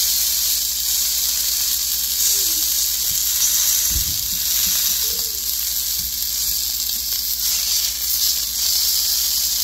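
Walleye fillets sizzling steadily in a hot cast iron skillet, seared in the oil already on the fish. A low thump comes about four seconds in.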